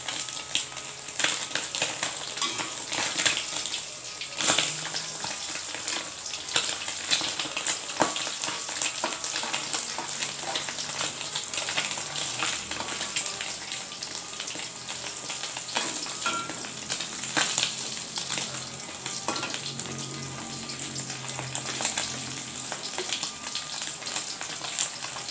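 Pindang fish frying in hot oil in a wok: continuous sizzling and crackling. A metal spatula scrapes and knocks against the wok now and then as the fish is turned.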